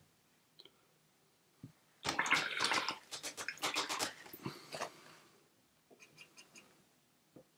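A watercolour brush being rinsed in a jar of water: about two seconds in comes a few seconds of quick wet swishing with rapid taps and clicks against the jar, then a few faint light taps near the end.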